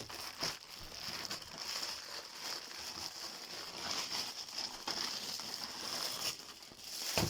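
Crinkling and rustling of shoe-box packaging being handled, with scattered clicks, over a steady high hiss.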